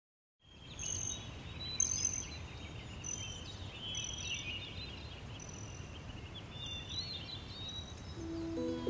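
Birds chirping and whistling over a steady low outdoor rumble, after half a second of silence at the start.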